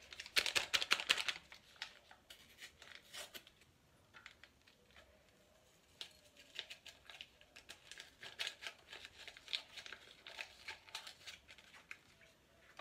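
A sachet of strawberry flan mix being torn open: a loud crackly tearing for about a second and a half. Then intermittent crinkling of the packet as its contents are tipped into a small saucepan.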